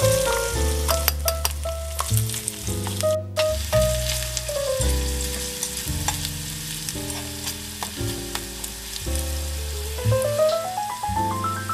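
Diced vegetables sizzling in a miniature steel pan, stirred with a tiny metal slotted spatula that clicks and scrapes against the pan. Background music with steady bass notes plays alongside, with a rising run of notes near the end.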